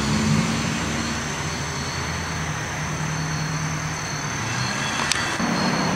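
Street traffic at an intersection: a vehicle engine runs with a steady low hum, over a constant traffic noise, with thin high steady trills behind it and one short click about five seconds in.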